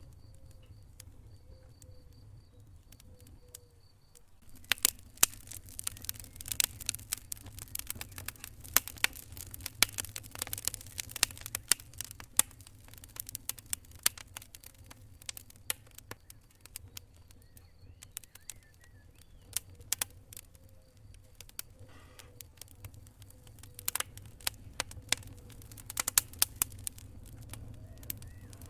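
Wood fire crackling in a fireplace: irregular sharp pops and snaps, sparse for the first few seconds and then coming thick and fast, over a low steady hum.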